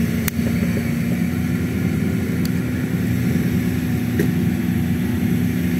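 Off-road 4x4's engine running steadily at an even, low pitch while pulling through deep mud, with a couple of faint clicks.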